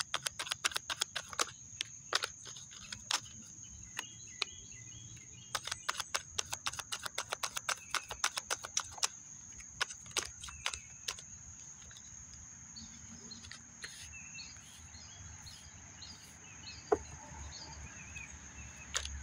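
A deck of tarot cards being shuffled by hand: quick runs of card clicks and flicks for about the first ten seconds, then fewer. A steady high-pitched insect trill runs underneath, and birds chirp in the second half.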